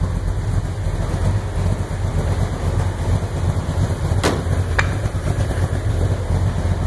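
Two sharp clicks about four and a half seconds in, half a second apart, from the De Tomaso Pantera's door latch being worked as the door is opened, over a steady low hum.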